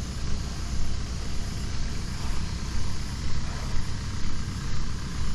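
Steady road traffic noise, with vehicles running and passing by.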